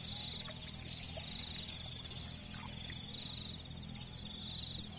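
Insects chirping in the surrounding grass and trees: a continuous high drone layered with a pulsing, on-and-off trill, with a few faint clicks.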